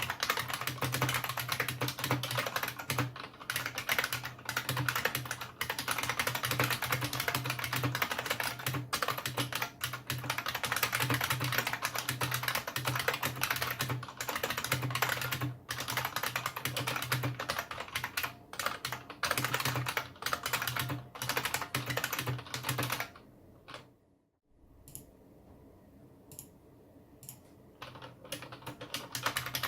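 Fast, continuous typing on a Unicomp Model M keyboard, its buckling-spring switches clacking in a dense stream. Near the end the typing breaks off for a few seconds with only a few scattered key clicks, then starts again.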